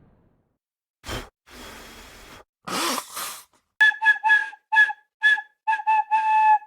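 Blowing sound effects: three breathy puffs of air, the third the loudest, then a quick series of about nine short blown toots on one steady pitch, the last held a little longer.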